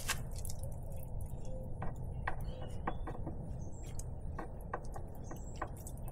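Scattered light clicks and taps, a few seconds apart, from handling the removed plastic fuel filter of a Yamaha outboard, over a steady low background noise.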